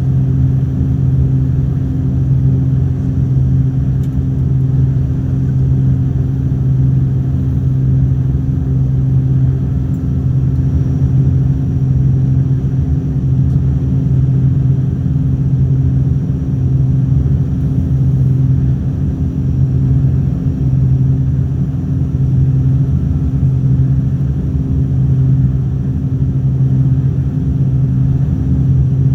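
Trigana Air airliner's engines droning steadily: a loud, even, low hum that does not change.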